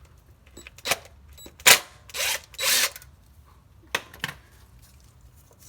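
Work on the A/C clutch coil's retaining screws: a few sharp metallic knocks and clicks, the loudest about 1.7 seconds in, and two short bursts of a power driver just after it, each under half a second.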